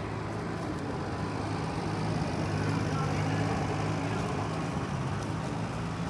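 A motor vehicle's engine running with a steady low hum that grows louder toward the middle and eases off again, over outdoor background noise.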